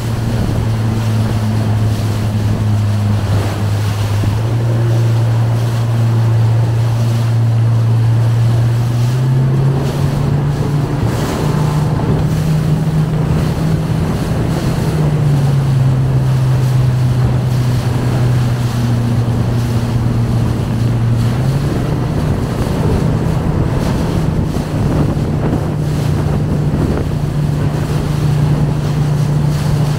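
Motorboat engine running steadily, its pitch stepping up and down several times as the throttle changes. Wind buffets the microphone and water rushes past the hull.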